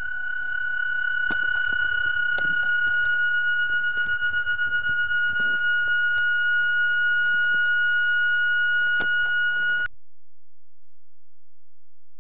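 A steady high-pitched whistle-like tone, with a fainter overtone and scattered faint clicks, that cuts off suddenly about ten seconds in.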